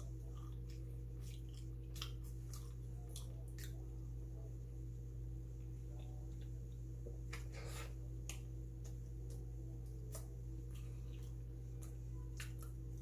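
Chewing bungeoppang (fish-shaped filled pastry), scattered wet clicks and smacks of the mouth over a steady low hum.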